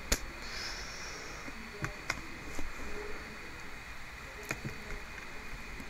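Low steady hiss with a handful of faint, separate mouse clicks spread across a few seconds.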